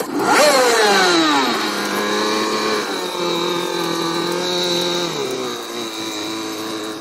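Boat engine starting up with a quick rev that falls back, then running steadily, dropping to a lower speed about five seconds in. The engine is running but does not get the stuck boat moving.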